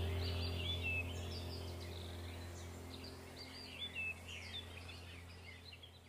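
Small birds chirping and whistling in short repeated calls, over a low sustained musical tone that slowly fades away.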